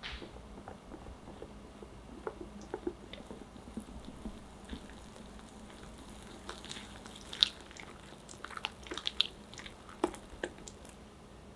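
Wire whisk stirring sifted flour and cocoa powder into thick chocolate cake batter in a glass bowl: soft wet squishing and scraping, with sharp clicks of the whisk against the glass, more frequent in the second half and loudest a little past the middle.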